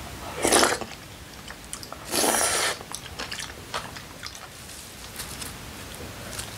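A person slurping soft tofu stew (sundubu-jjigae) from a spoon: two loud slurps, about half a second and about two seconds in. They are followed by quiet chewing and light clicks of spoon and chopsticks.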